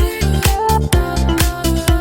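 Upbeat electronic background music with a steady drum beat and deep bass.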